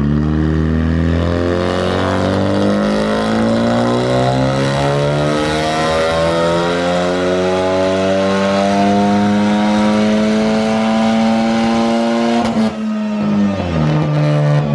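2014 Ford Focus ST's 2.0-litre EcoBoost turbocharged four-cylinder with a Garrett GTX2867R Gen 2 big turbo, making a wide-open-throttle pull on a chassis dyno: the revs climb steadily for about twelve seconds. Near the end the throttle closes with a sharp burst and the revs fall away to a lower steady speed.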